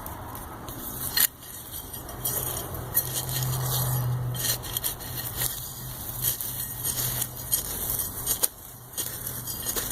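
Digging in garden soil: repeated scraping with gritty clicks of soil and small stones against the tool or hand, over a low steady hum.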